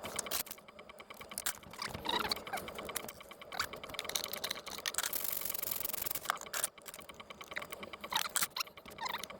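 Irregular light clicks, taps and scraping of a utensil in a mixing bowl as bread ingredients are stirred together, with a short stretch of hissy rustling about halfway through.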